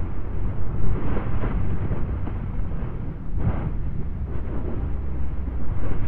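Lava fountain in an erupting volcanic crater: a continuous deep rumble with irregular splashing bursts of spatter, the strongest about three and a half seconds in.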